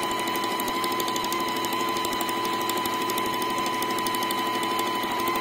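Brother Tendy Special computerized sewing machine running steadily while it sews a decorative stitch: an even motor whine with fast, regular needle ticking.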